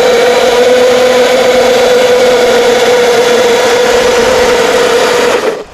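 Electric motors of two Traxxas RC monster trucks, an XRT and an X-Maxx, whining at full throttle in a tug of war, the pitch holding steady while they strain against each other. The whine cuts off suddenly near the end as the pull ends.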